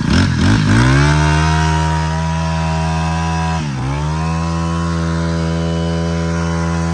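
Honda GX25 four-stroke brush cutter engine, freshly started, revving up over the first second and then running steadily at high throttle. About three and a half seconds in, the revs dip sharply and come straight back up.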